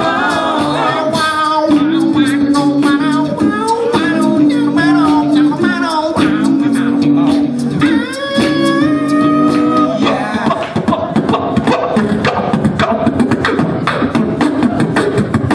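A cappella vocal group singing in harmony over a beatboxer's vocal percussion. About ten seconds in, the held sung notes drop away and the beatboxing carries on nearly alone.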